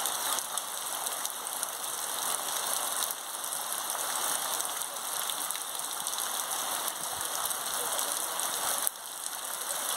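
Heavy rain falling steadily on trees, foliage and the ground, a dense even hiss with the patter of individual drops.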